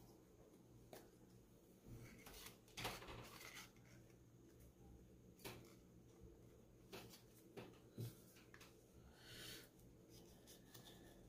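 Near silence with a handful of faint taps and rustles from hands handling subwoofer parts and paper shims. The clearest come about three seconds in and about eight seconds in.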